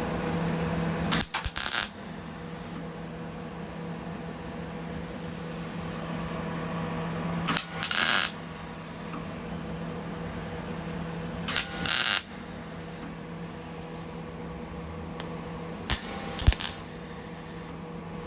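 MIG welder laying four short tack welds on old sheet steel, each a half-second to one-second burst of crackling arc, over a steady hum.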